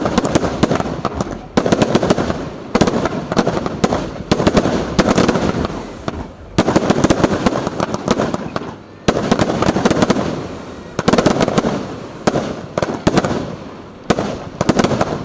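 Fireworks firing in dense, rapid salvos of bangs and crackles, the waves starting abruptly every two to three seconds.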